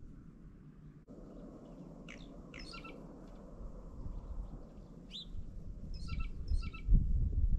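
Short, sharp songbird chirps in two clusters, about two seconds in and again from about five to six and a half seconds, over a low rumble that swells near the end.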